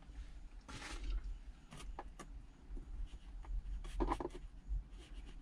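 Scattered light clicks and rustles of a dash cam cable being pressed and tucked into a car's plastic pillar trim and weather stripping, with a short rustle about a second in.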